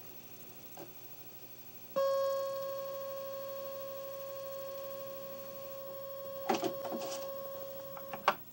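Commodore 64 cartridge-dumping setup writing a cartridge image to disk: a steady electronic tone starts suddenly about two seconds in, holds for about six seconds while fading slightly, then cuts off. A few clicks come near the end.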